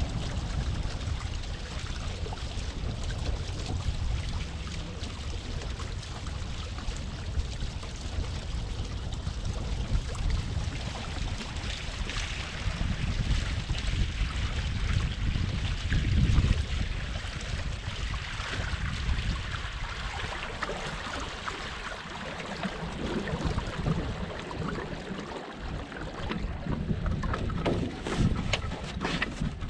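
Wind buffeting the microphone over the rush and splash of water along a small sailboat's hull under sail. A few knocks come near the end.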